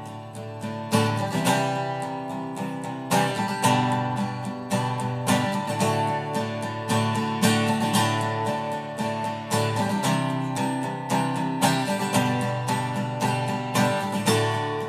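Instrumental country music: strummed acoustic guitar with a regular beat, no singing.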